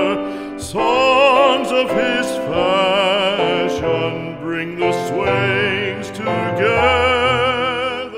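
Classical art song: a solo voice sings with wide vibrato over instrumental accompaniment, moving from note to note and then holding a long final note near the end.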